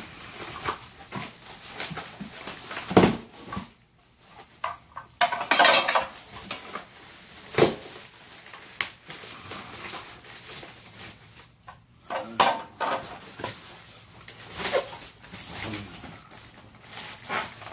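Exercise bike parts being unpacked by hand: plastic wrapping rustling and foam packing rubbing, broken by hard parts clattering and knocking, with sharp knocks about 3 and 7.5 seconds in.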